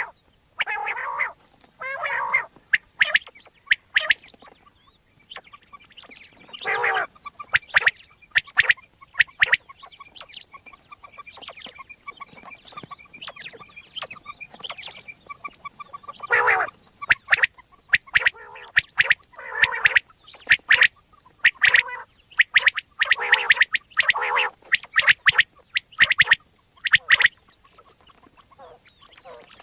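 Common quail calls played as a hunting lure: a dense, irregular run of short, sharp chirps and clicks, broken by a few longer, fuller calls.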